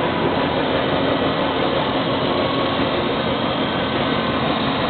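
Special-purpose drilling machine running: a loud, steady mechanical hum and whir from its motors and spindle heads, with no distinct strikes or changes.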